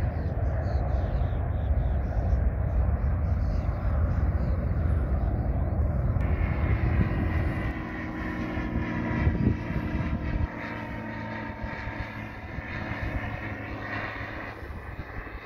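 Jet engines of a Boeing 737-400 rumbling as it climbs away after takeoff. About six seconds in, a small high-wing propeller plane's engine comes in as a steady droning hum, and the deep jet rumble cuts off about ten seconds in.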